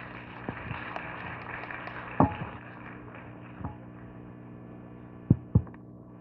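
Steady electrical mains hum over the lecture hall's PA system, with a few dull thumps at the podium microphone: one about two seconds in and two close together near the end.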